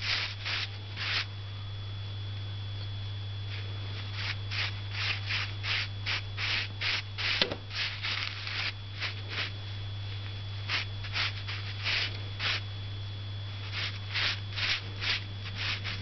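A paintbrush scrubbing short, quick strokes of paint across paper, in runs of about two strokes a second, with a steady low hum underneath.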